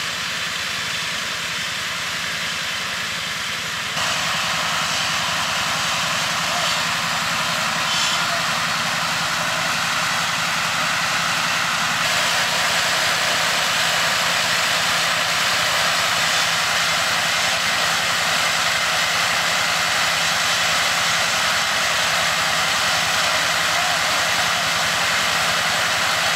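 Steady machine drone at constant speed, with a low hum underneath; it gets louder about four seconds in and again about twelve seconds in.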